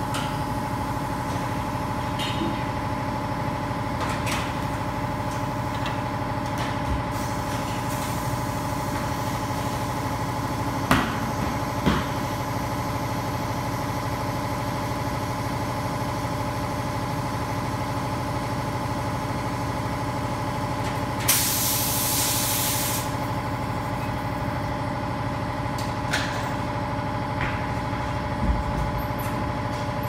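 Tire-shop work: a steady machine hum throughout, a few sharp metal clanks from tools and wheels, and a loud hiss of compressed air lasting a second or two about two-thirds of the way through.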